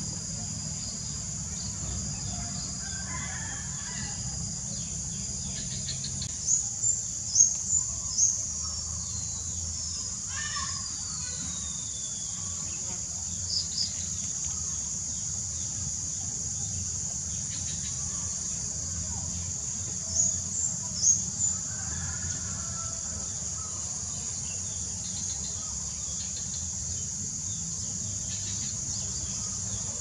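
Steady high-pitched drone of insects, with short bird chirps in two brief clusters, about six seconds in and again about twenty seconds in, and a falling whistle in between.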